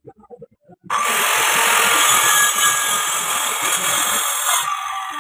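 Handheld electric circular saw switched on about a second in, running loud and steady as it cuts along a wooden door panel, then switched off near the end and winding down.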